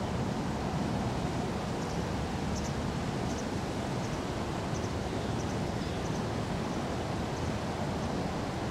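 Steady rush of flowing river water, with a faint series of short, high chirps from about two to seven seconds in.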